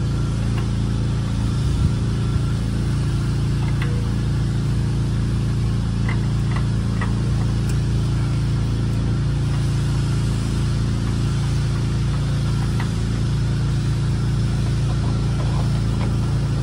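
Steady low hum of a running motor, with a few faint clicks.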